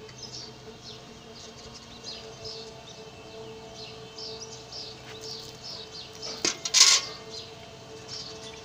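Small birds chirping over and over, with a steady faint hum beneath. About two-thirds of the way through, a brief loud rustling noise comes twice in quick succession.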